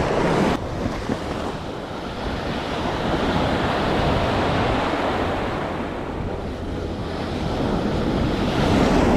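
Surf breaking and washing up a sandy beach close by, swelling and ebbing, with wind rumbling on the microphone.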